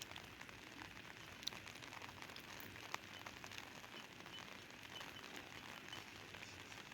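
Rain falling: a faint, steady patter with scattered drop ticks, and two sharper ticks about one and a half and three seconds in.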